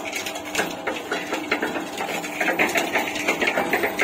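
A 2 HP single-phase electric half-bag tilting-drum concrete mixer running, its drum turning with wet concrete mix churning inside: a steady hum under a quick, irregular clatter.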